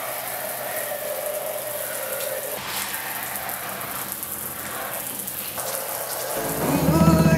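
Steady hiss of water spraying from a kitchen sink sprayer hose. Music with a bass line comes in near the end.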